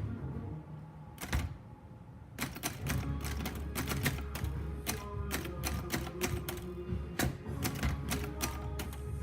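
Remington Noiseless typewriter being typed on: one keystroke about a second in, then a run of irregular key thunks from about two and a half seconds on. Background music plays underneath.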